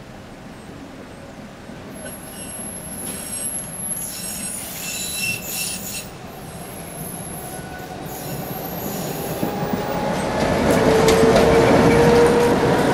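ČKD Tatra KT8D5 articulated tram approaching and passing close by, its wheels squealing as it takes the curve. The running noise grows steadily louder as it nears, with the squeal strongest about eleven seconds in.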